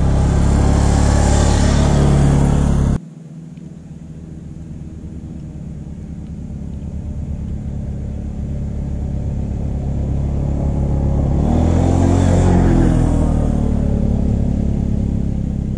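2017 Arctic Cat Alterra 400 ATV's single-cylinder engine running as the quad drives close past the ground-level microphone. After a sudden cut about three seconds in, it is heard again approaching, growing steadily louder to a pass-by about twelve seconds in, where its pitch bends, then fading.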